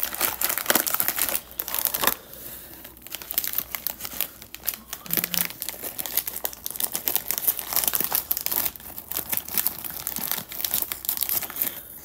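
Metallised foil snack packet crinkling loudly in the hands as it is opened and handled, in an irregular run of crackles.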